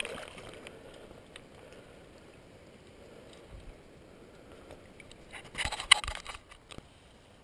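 A quick cluster of sharp clicks and scrapes close to the microphone, about six seconds in, over a faint steady background.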